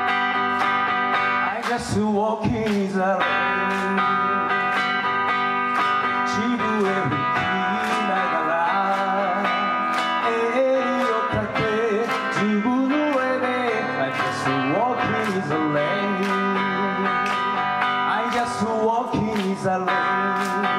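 Live rock band playing: acoustic and electric guitars over drums, with a bending melody line carried above them.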